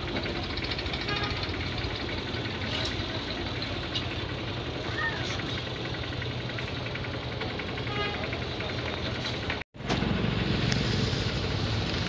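Heavy diesel engine idling steadily, with people's voices in the background. The sound cuts out for an instant about three-quarters through and comes back a little louder.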